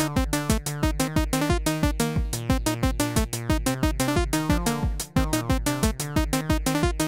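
Electronic background music with a fast, steady drum-machine beat and synthesizer notes.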